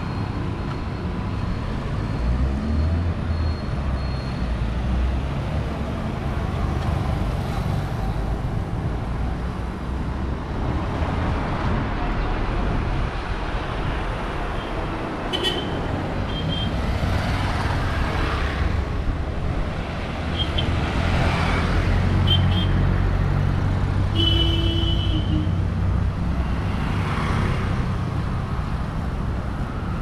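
Street traffic on a town main road: motorcycles and three-wheel auto-rickshaws passing over a steady engine rumble, with several vehicles swelling past in the second half. A few short horn beeps sound from about halfway, one held for about a second near the end.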